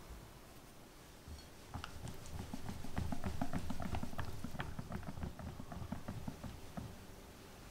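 Wire whisk beating a thick, creamy mixture in a glass bowl: a fast run of wet clicks and slaps that starts about two seconds in and eases off near the end.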